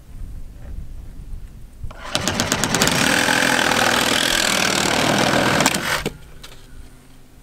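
Reciprocating saw cutting through PVC pipe. It starts about two seconds in with rapid blade strokes, runs steadily for about four seconds and then stops suddenly.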